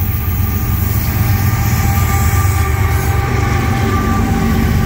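Norfolk Southern diesel-electric freight locomotives passing at close range: a loud, steady low engine rumble with wheel-on-rail noise, swelling slightly as the second unit comes alongside.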